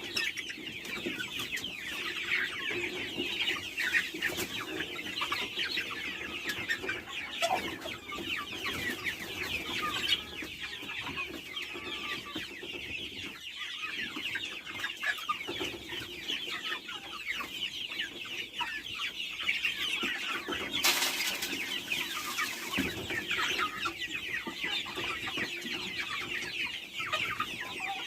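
A flock of chickens calling continuously, a dense overlapping chorus of short high-pitched calls and clucks. A brief burst of rustling noise comes about 21 seconds in.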